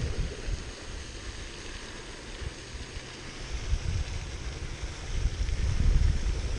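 Steady splashing of a pond fountain, with wind buffeting the microphone in low gusts that ease off and then build again in the second half.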